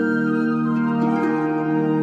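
Calm, slow new-age instrumental music with sustained organ-like keyboard tones, the chord shifting about a second in.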